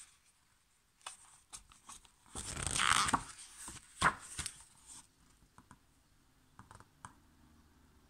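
A picture book's page being turned by hand: a papery swish about two and a half seconds in, a sharp snap of paper about four seconds in as the page flips over, and light rustles and taps of fingers on the paper.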